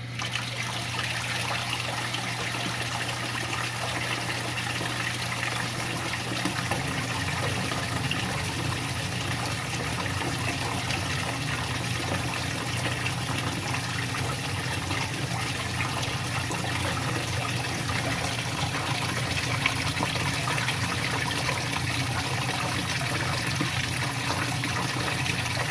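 Water running steadily from an upper reservoir down into a bottom reservoir through automatically opened drain valves. This is the drain cycle set off by the float switch sensing overflow. A steady low hum runs underneath.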